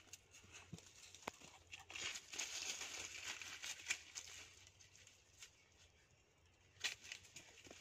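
Faint rustling and crackling of dry leaf litter under the paws of a dog and a young monkey moving about, with scattered small twig snaps; the rustle is thickest from about two to four and a half seconds in, and a sharp snap comes near the end.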